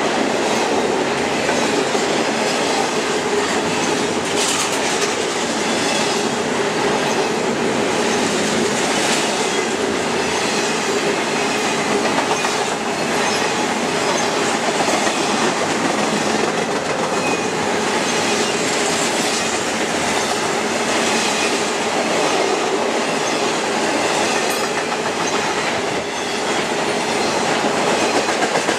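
CSX intermodal freight train passing close by: a steady, loud rumble and clatter of steel wheels on the rails as container well cars and trailer-carrying flatcars roll past, with faint wheel squeal at times. Near the end the sound dips briefly, then a quick run of wheel clicks follows.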